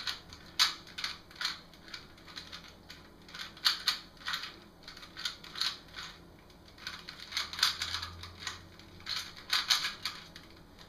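3x3 Rubik's cube being turned quickly during a solve: irregular bursts of plastic clicking and clacking as the layers are twisted.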